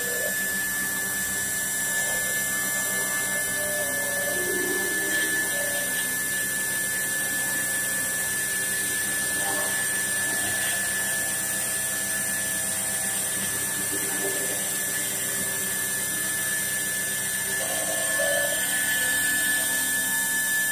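CNC stone-carving router spindle running with a steady high-pitched whine as its thin carving bit cuts a relief into a white stone panel.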